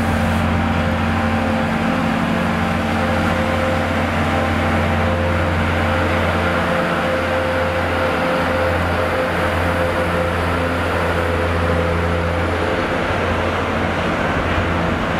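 Network Rail rail grinder's diesel engines running steadily as the train pulls out and passes close by, a continuous engine drone with a constant hum.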